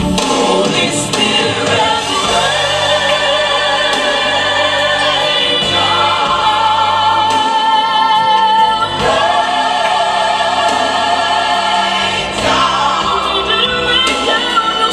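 Worship song: a choir singing sustained, wavering lines over a bass accompaniment.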